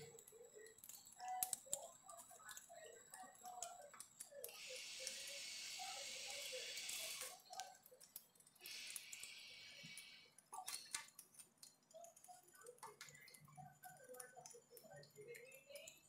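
Cockatiel bathing on a wet bench top, fluttering and shaking its wet feathers in two bursts of faint, hissing rustle: a long one about four and a half seconds in and a shorter one near nine seconds. Faint scattered clicks come between them.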